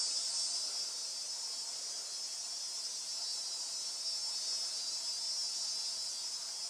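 Steady, high-pitched chorus of insects trilling in the background, with no breaks or changes.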